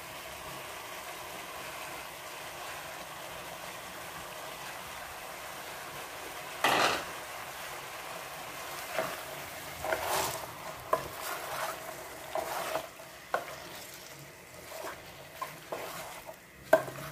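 Chicken sizzling steadily in a pot with garlic, onion and tomato, with one louder scrape about seven seconds in. From about halfway on, a spoon knocks and scrapes against the pot as the food is stirred, and the sizzle thins.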